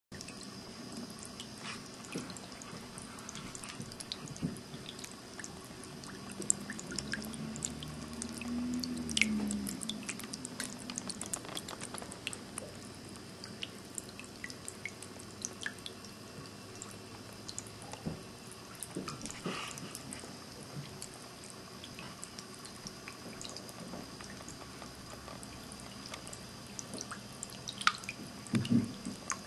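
Ceramic pet drinking fountain running, water trickling and dripping steadily into its basin with many small splashes. About eight seconds in, a brief low tone rises and falls over a couple of seconds.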